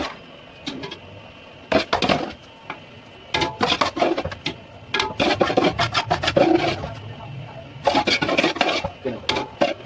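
A metal utensil scraping and scooping against a cooking pot in several short bursts, as rice is spooned in and spread for a layer of biryani.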